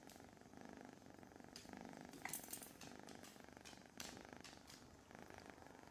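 Kitten purring close to the microphone, a quiet steady rhythmic rumble, with a few brief rustling clicks, the strongest about two and four seconds in.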